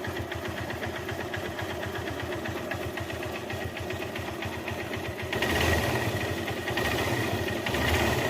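Motorcycle engine idling with a rapid even ticking from the top end, the camshaft and timing chain noise it is being repaired for. About five seconds in it is revved louder, and again near the end.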